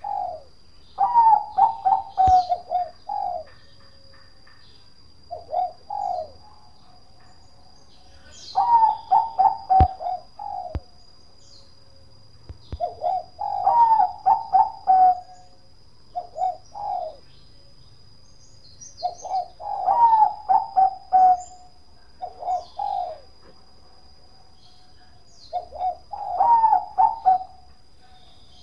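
Zebra dove of the Bangkok perkutut strain singing: runs of rapid staccato coos, a longer phrase followed by a shorter one, repeated about every three seconds.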